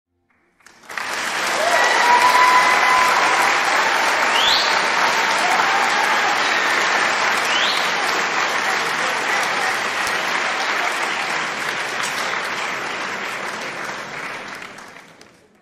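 Theatre audience applauding, with a few voices calling out over the clapping. It starts about a second in, holds steady and fades out near the end.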